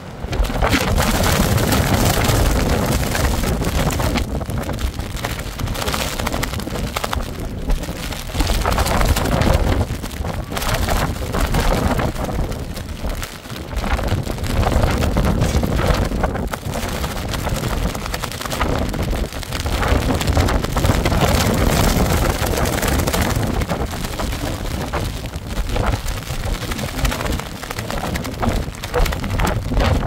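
Strong wind gusting against the microphone in a storm, rising and falling every few seconds, with rain falling.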